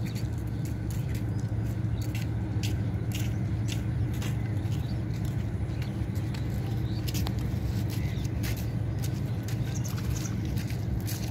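A large fishing net being paid out over the side of a wooden boat: light splashes, drips and sharp little ticks as the weighted net slides into the water, many times over. A steady low hum runs underneath and is the loudest part.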